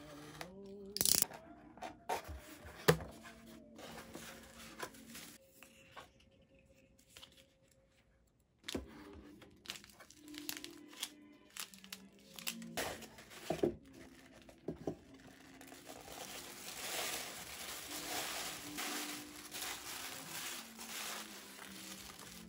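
A box cutter slicing the paper seal on a cardboard box, with sharp clicks and scrapes, then handling of the box and its contents; in the last several seconds tissue paper crinkles steadily as a ceramic mug is unwrapped. Soft background music runs underneath.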